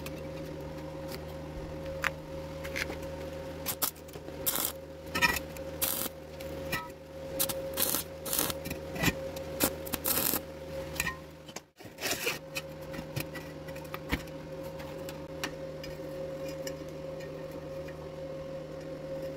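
Stick-welding arc crackling in a string of short bursts as tack welds are struck on a thin galvanised tube joint. A steady electrical hum runs underneath, and after the bursts only the hum remains.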